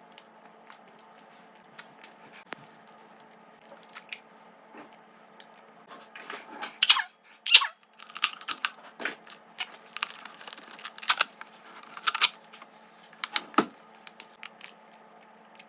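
Thin plastic water bottle being handled, crinkling and crackling in irregular sharp bursts that start about six seconds in and die away near the end.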